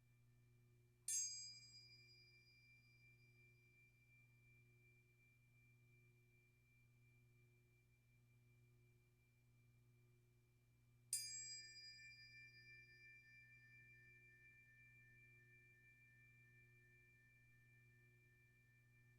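A high-pitched metal chime struck twice, about ten seconds apart, each strike ringing on in a long, slowly fading high tone. A faint, steady low hum lies underneath.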